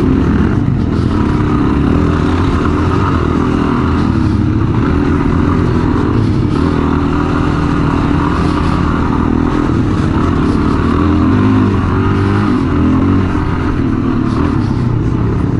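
Suzuki DR-Z400's single-cylinder four-stroke engine running steadily under way on a dirt trail, its pitch wavering a little as the throttle is worked.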